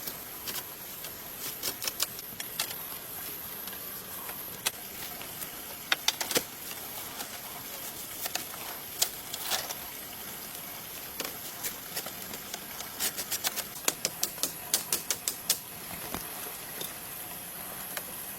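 A series of sharp, irregular taps and clicks, with a quick run of several a second near the end, over a steady high hiss.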